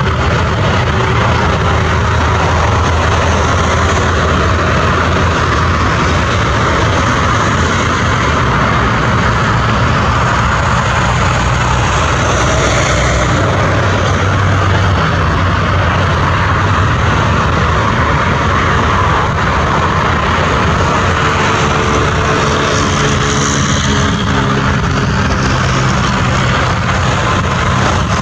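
Boeing 767-300 freighter's twin GE CF6-80C2 turbofans running at taxi power as the jet rolls along the taxiway: a steady, unbroken jet engine noise.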